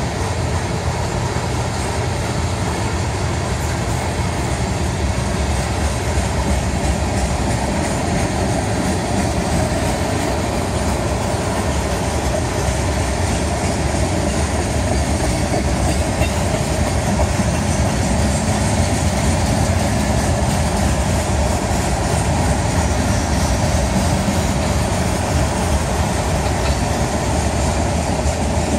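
Cars of a long mixed freight train rolling past: tank cars, boxcars and gondolas, their steel wheels making a steady, loud running noise on the rails.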